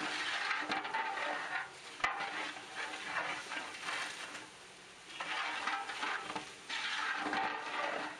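Long-handled metal ladle stirring and scraping in a large aluminium pot of bubbling, sizzling beef biryani masala. The stirring eases for about a second midway, then starts again.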